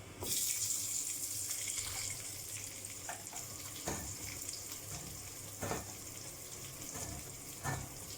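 Shallots and garlic going into hot fat in a kadai with tempered mustard seeds and cumin: a sudden sizzle starts just after the beginning and carries on steadily. A few knocks of the stirring spoon against the pan sound through it.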